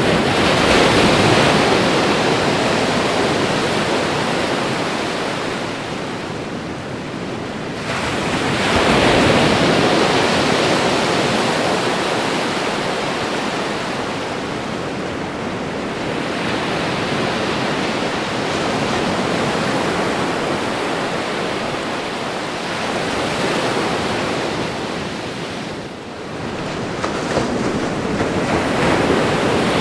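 Ocean waves breaking and washing in a continuous rush of surf, swelling louder as each wave breaks: about a second in, again about nine seconds in, and near the end, with a brief lull a few seconds before the end.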